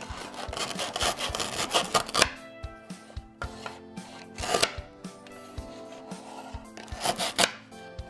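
Velcro tearing apart as a plastic toy knife is pushed between the slices of a velcro toy cake: a long rip over the first two seconds, then shorter rips about halfway through and near the end. Background music runs underneath.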